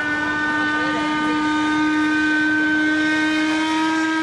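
The steam whistle of the 1901 paddle steamer Uri blowing one long, steady blast.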